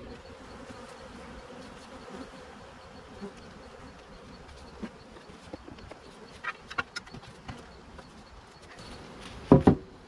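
Honey bees buzzing around an opened hive, a steady hum. Wooden hive parts are handled with a few light clicks, and two louder knocks near the end as the cover goes back on.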